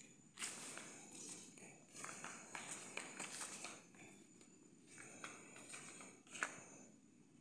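Faint footsteps and scuffing of a person walking, with a single sharp click near the end.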